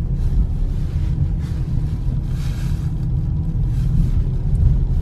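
Steady low rumble of a car driving slowly, heard from inside the cabin: engine and tyre noise with a faint hiss that rises and falls.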